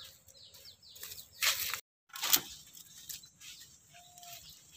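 Faint outdoor background noise with two short noisy bursts around the middle, and a brief gap where the sound cuts out completely between them.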